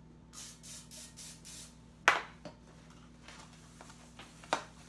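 Several short hissing bursts of aerosol non-stick cooking spray (Pam) sprayed into an aluminium round cake pan, followed about two seconds in by a sharp knock.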